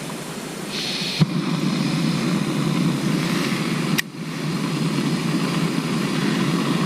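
Portable camping stove burner running with a steady roaring hiss, just lit with a Zippo lighter in wet weather. It gets louder about a second in, with sharp clicks about one and four seconds in.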